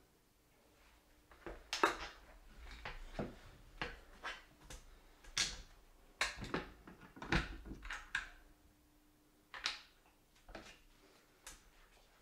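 Irregular clicks, taps and rattles of hands working at a ceiling electrical box, handling the wires, wire nuts and the metal light-fixture pan.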